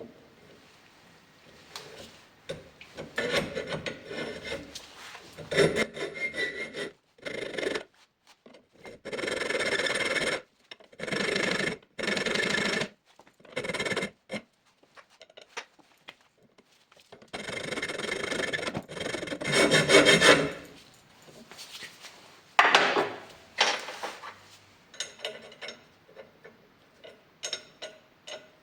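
Hand file rasping in repeated back-and-forth strokes on a bicycle fork part, filing it down so it will slide into place. The strokes come in several separate runs with sudden breaks between them.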